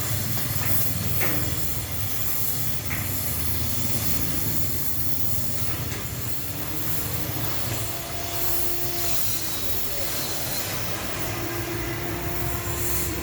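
Electric arc welding on a steel chair frame: a steady hiss with a low buzz under it, and a faint hum joining about halfway through.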